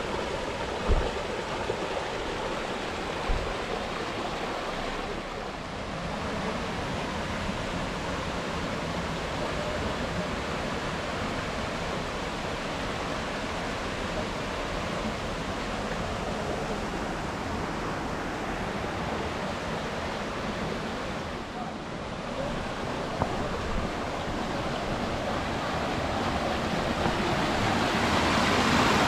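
A small stream of water rushing over rocks, a steady splashing noise that grows louder in the last few seconds. Two light knocks come in the first few seconds.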